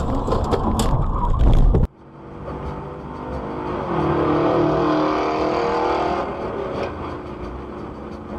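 Dashcam audio of cars on the road. First comes loud road and wind noise with a few sharp knocks, which cuts off abruptly about two seconds in. Then quieter traffic noise follows, with a steady pitched tone that swells up in the middle and fades again.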